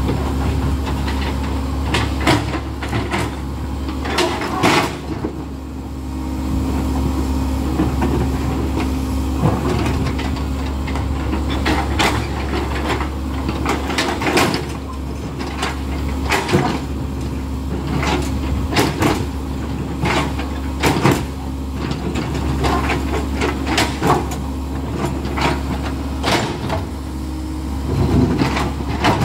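Komatsu hydraulic excavator's diesel engine running steadily under digging load, with repeated short clanks and knocks from the bucket and arm working in water, mud and rock.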